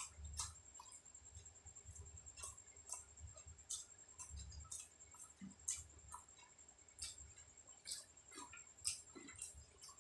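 Quiet close-miked eating: a person chewing, with soft irregular wet mouth clicks about twice a second.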